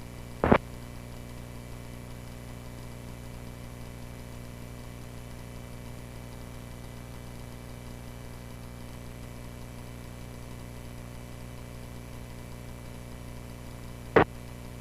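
Cessna 140A's piston engine running steadily, a constant drone. Two short clicks cut through it, one just after the start and one near the end.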